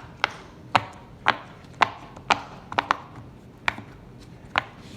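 Silicone Pop It fidget toy bubbles being pressed and popped one after another: a string of sharp little pops, about two a second, unevenly spaced.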